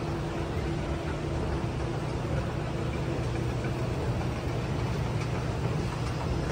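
Steady low hum and hiss of a large indoor shopping-mall atrium, with machinery and ventilation rumble and a faint steady tone.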